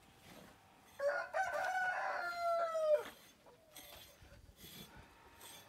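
A rooster crowing once: a single cock-a-doodle-doo about two seconds long, starting about a second in and dropping in pitch at the end.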